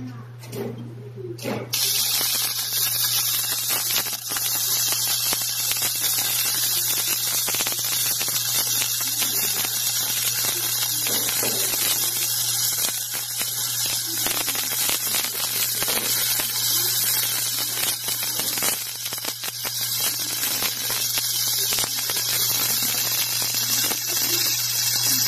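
Gasless flux-cored MIG welding with a Taiwan Power MIG200i inverter welder: the arc crackles and sizzles steadily. It starts about two seconds in after a couple of short arc strikes, and a steady low hum runs underneath.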